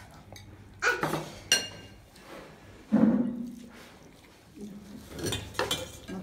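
A metal ladle clinking against a glass serving bowl and a ceramic plate as sambar is served, with sharp ringing clinks about a second in. A short, louder low sound comes about three seconds in.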